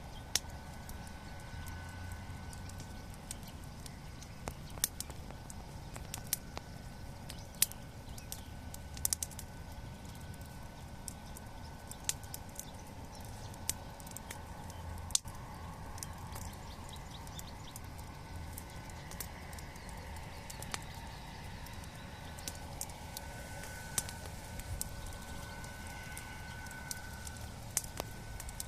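Bonfire crackling, with irregular sharp pops and snaps over a steady low background.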